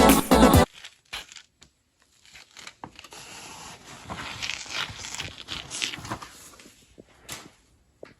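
Paper rustling and crinkling as it is handled, with a few small clicks, for several seconds after background music cuts off under a second in.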